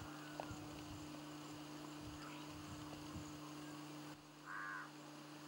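Steady low electrical hum under faint footsteps on a dirt path. The hum drops away about four seconds in, followed by a brief high-pitched sound.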